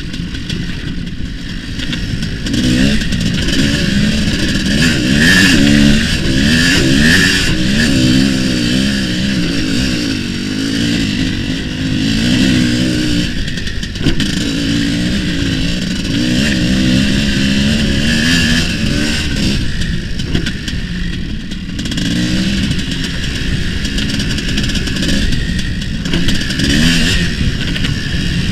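Tuned single-cylinder two-stroke IZh Planeta motorcycle engine with a reed valve and an expansion-chamber exhaust, revving up and down as the bike is ridden around a dirt track. The engine dips in loudness briefly about halfway through and again a little later.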